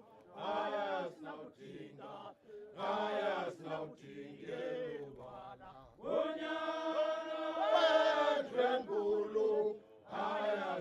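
Men's voices chanting in short phrases, then several voices holding one long note together about six seconds in.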